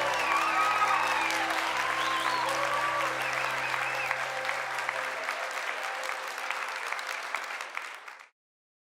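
Audience applauding at the end of a choir song, while the last held chord of the music dies away. The applause cuts off abruptly about eight seconds in.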